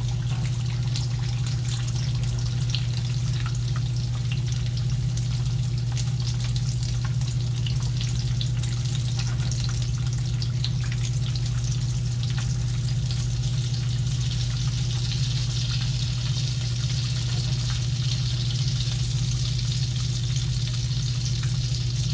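Potato-filled corn tortilla tacos frying in shallow hot oil in a skillet: a steady sizzle full of fine crackling pops, growing stronger about two-thirds of the way through. A steady low hum runs underneath.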